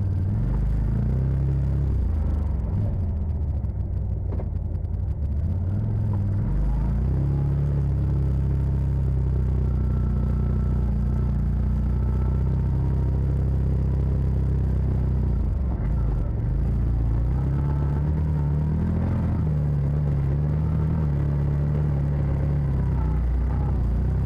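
Side-by-side UTV engine running on a trail ride. Its pitch rises and falls with the throttle in the first few seconds and again near the end, and it runs steadier through the middle.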